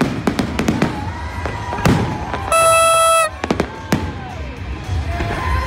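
Fireworks display: aerial shells bursting with repeated sharp bangs and crackling. About two and a half seconds in, a loud steady horn-like blast sounds for just under a second over the bangs.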